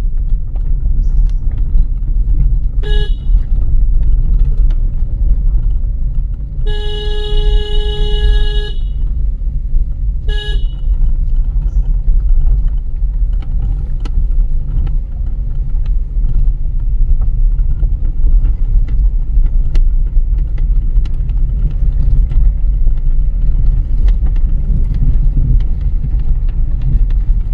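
Car horn sounded three times: a short toot, a long toot of about two seconds, then another short toot, over the steady low rumble of a car driving on the road.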